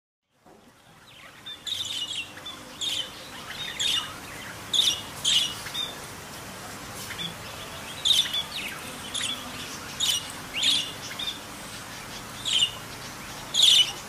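Budgerigars chirping in short, sharp calls that come irregularly, about one a second, over a steady background hiss. The sound fades in during the first second or so.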